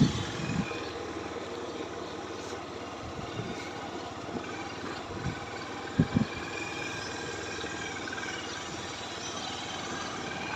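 Steady outdoor background noise with a distant engine hum, and a short knock about six seconds in.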